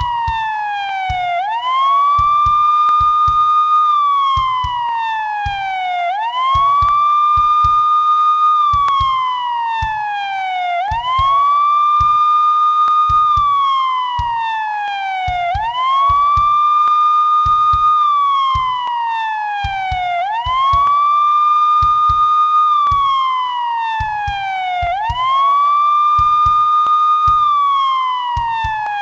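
Police siren wailing in a repeating cycle: the pitch rises quickly, holds briefly at the top, then slides slowly back down, about once every five seconds.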